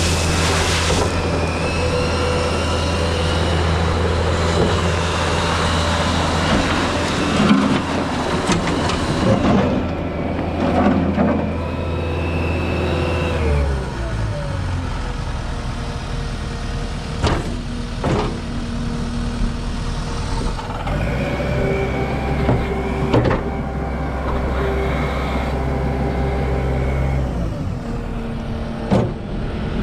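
Case SR240 skid steer's diesel engine running at high revs with a high whine, dropping to a lower speed about halfway through, speeding up again and dropping back near the end. Several sharp clunks sound in the second half.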